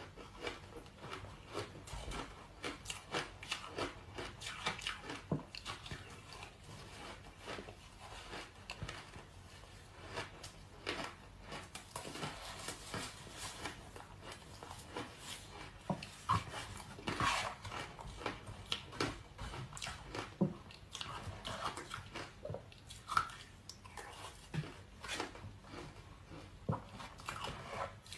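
Close-miked biting and chewing of large ice chunks coated in matcha powder: a steady run of crisp crunches and cracking, with louder single bites now and then.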